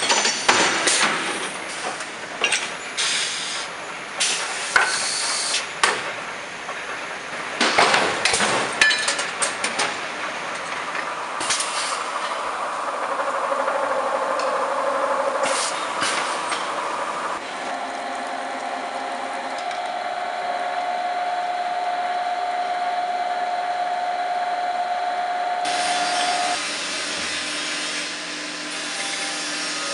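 Bolt-making machinery in sequence. A forging press strikes red-hot blanks into hexagon heads, giving repeated sharp metal impacts through the first ten seconds. Then a lathe chamfers a steel bar with a steady cutting hiss, and after abrupt cuts, machines run with a steady hum, ending on a thread-rolling machine rolling threads onto a bolt.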